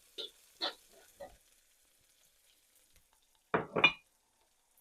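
Spatula stirring ingredients in a hot frying pan: a few short scraping strokes, a pause, then two loud clanks against the pan near the end.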